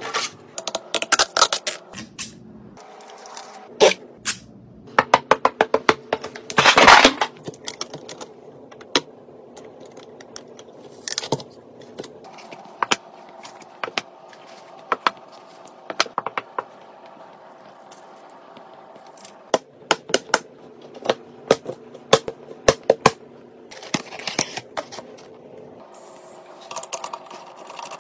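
Computer parts being handled and fitted by hand: sharp clicks and taps of plastic and metal components set down and snapped into place, with a longer scraping rustle about seven seconds in. Near the end, a quick run of small ticks as a screwdriver drives a screw into the motherboard.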